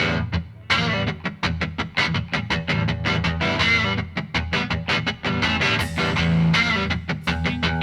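Background music led by a plucked, slightly distorted electric guitar with bass, in quick repeated notes.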